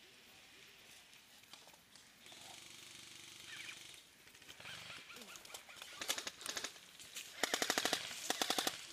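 Airsoft rifle firing on full auto: three quick bursts of rapid snapping shots, about fifteen a second, the second burst the loudest.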